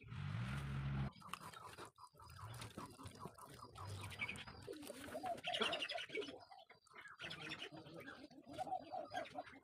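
Birds calling, with dove-like cooing among them, over small rubbing and clicking sounds of a hand and cloth smoothing wet clay. A low drone sounds for about the first second.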